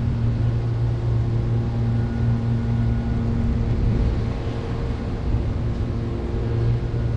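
Steady low mechanical hum with a few faint held tones above it, unchanging throughout.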